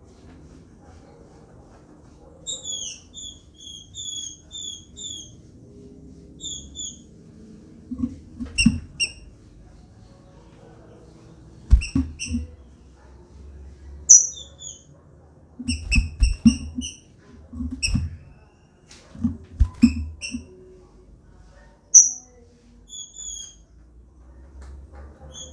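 Female green-winged saltator (trinca-ferro) calling in short, high chirping notes, first a quick run of about ten, then single notes spaced out. Between them come several low thumps and flutters as she hops and flaps between the wooden perches of her cage.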